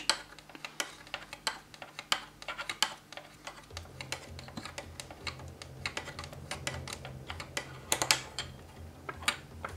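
Irregular light clicks and taps of fingertips pressing and rolling epoxy putty across a ridged plastic texture plate, the plate shifting slightly on the table.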